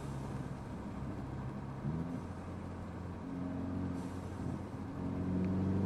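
Mercedes CLA250's turbocharged four-cylinder engine heard from inside the cabin while driving, its note stepping up and down as the throttle is worked.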